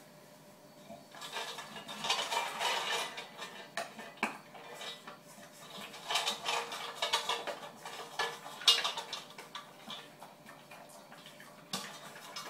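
English bulldog eating from a hand-held stainless steel bowl, its mouth scraping and clinking against the metal in an irregular run that starts about a second in. The loudest, sharpest clink comes about two-thirds of the way through.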